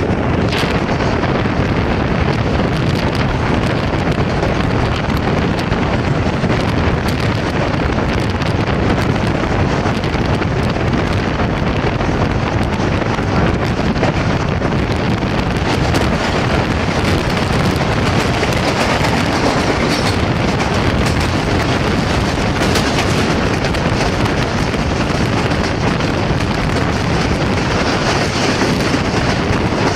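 Steady, loud wind rush on the microphone over the running rumble of a passenger train at speed, heard from an open window of the coach.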